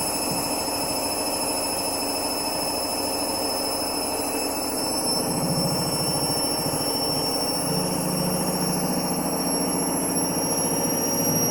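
Candy Grande Vita 7 kg washing machine spinning at high speed, a steady loud drum rumble with a high whine, and the rumble growing about five seconds in. The owner takes the noise for drum bearings on the way out.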